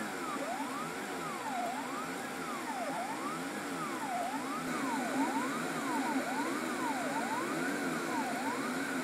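3D printer's stepper motors whining in repeated rising-and-falling pitch glides as the print head speeds up and slows down through its moves, over a steady hiss of machine noise.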